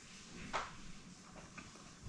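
Soft handling clicks at a sewing machine's needle as it is threaded by hand: one click about half a second in, then a few fainter ticks.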